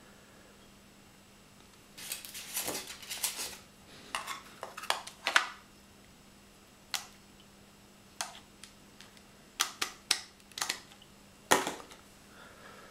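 Clicks and knocks of a Philips SBC288 alarm unit's plastic casing and a small plastic part being handled and fitted, in irregular clusters with the loudest knock near the end.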